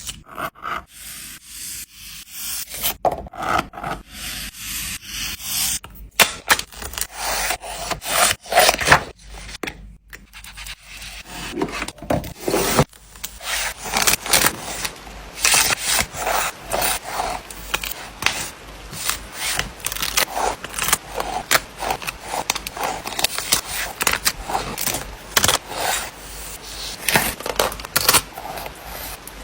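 Paper being handled for scrapbook crafting: a long run of short rubbing, scraping and crinkling strokes as sheets are pressed and layered on a hard surface.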